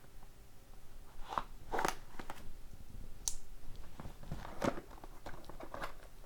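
A sealed trading-card box being opened by hand: irregular crackles, rustles and small clicks of packaging being torn and handled.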